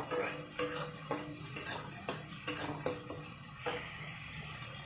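Spatula scraping and knocking against a metal kadai while stirring thick masala paste, about two strokes a second. The strokes die away a little past three-quarters of the way through.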